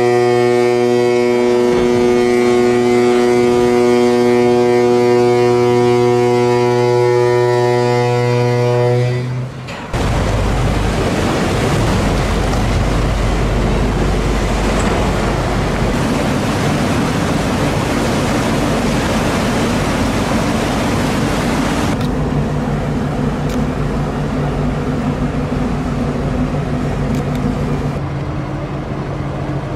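A ship's horn gives one long steady blast, which stops after about nine seconds. Then comes a loud rush and wash of water as a cargo ship is side-launched, sliding sideways off the slipway into the canal. About two-thirds of the way in, the rush gives way to a lower, steadier hum.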